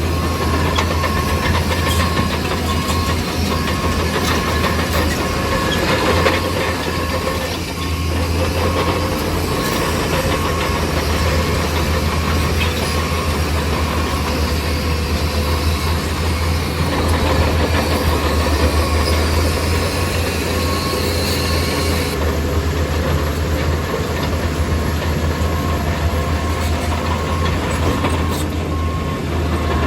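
Heavy diesel earthmoving machine running steadily under work, its engine making a strong low drone.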